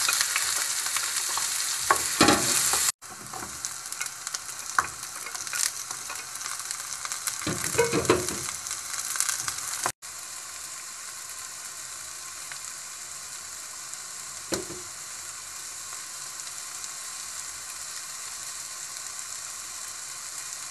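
Chopped garlic and onion, then red and green bell pepper strips, sizzling in hot oil in a nonstick pan. A spatula scrapes and clatters against the pan a few times in the first half, then the sizzle goes on steadily and more quietly. It cuts out briefly twice.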